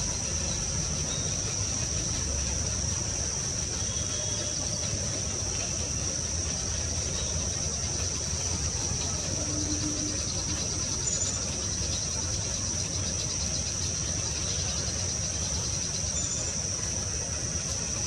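Insects chirring in one steady, unbroken high-pitched drone over a low background rumble, with a couple of faint short high notes in the second half.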